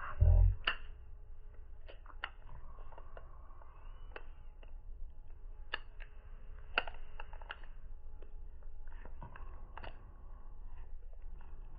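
Scattered light clicks and taps, as of small objects being handled, over a low steady hum, with one louder thump just after the start.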